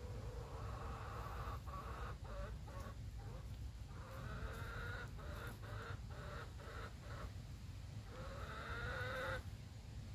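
Chicken making long, drawn-out low calls in several stretches, with short breaks between them; the last call rises slightly in pitch and stops abruptly about a second before the end.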